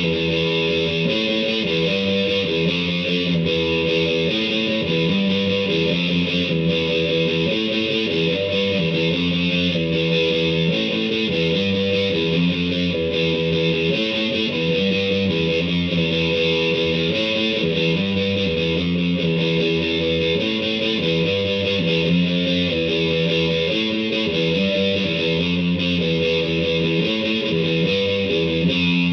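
Electric guitar, a Les Paul-style Vintage V100, played through a DigiTech GNX3 multi-effects user preset with heavy distortion into an H&K valve amp: sustained, effects-laden chords and notes.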